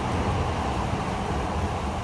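Train running on the tracks: a steady low rumble, easing off very slightly.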